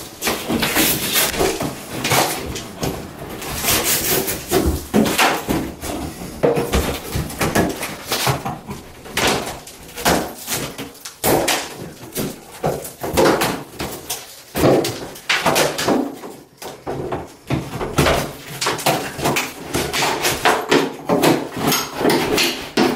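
Multi-tool scraper gouging and prying drywall and caulk off a bathtub's flange: repeated irregular scraping, crunching and tearing strokes, with brief pauses between bursts.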